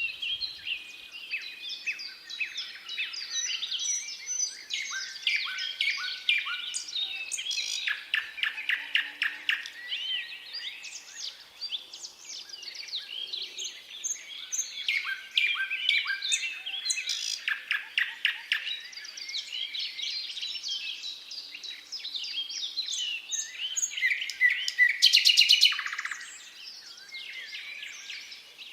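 Thrush nightingale singing: a string of varied phrases with short pauses between them, many built from rapid runs of repeated clicking notes, and a loud fast trill near the end.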